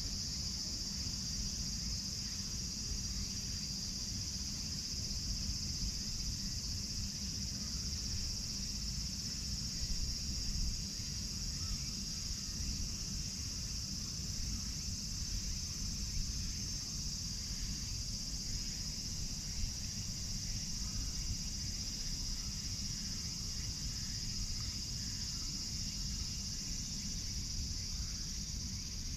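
Insects droning steadily at a high pitch, over a low rumble.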